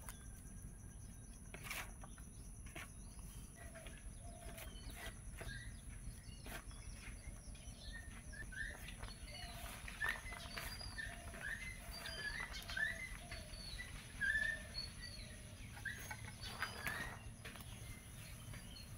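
Small birds chirping over and over, busiest in the middle, with scattered sharp knocks of a knife blade chopping leafy greens against a wooden board.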